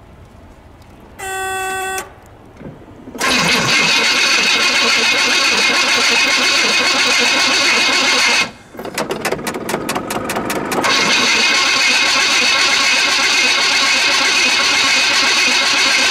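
Cold start of a stock 1971 Pontiac 455 V8 with points ignition and no choke: after a short steady electric tone about a second in, the engine is cranked and fires about three seconds in and runs loudly, falters to a near stop about eight and a half seconds in, is cranked in rapid even strokes, and catches again about eleven seconds in and keeps running.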